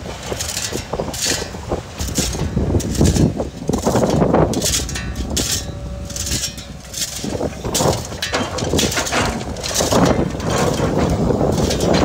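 Komatsu PC200 hydraulic excavator with its diesel engine running, its bucket scraping up stones and red earth with repeated clattering. The load is swung over and dropped into a steel dump-truck bed, with more clatter of rocks.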